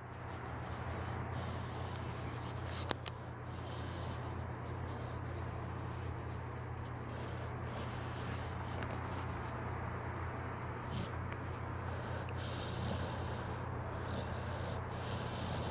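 Pit bull snoring in its sleep, with slow, repeated breaths over a steady low hum. A single sharp click sounds about three seconds in.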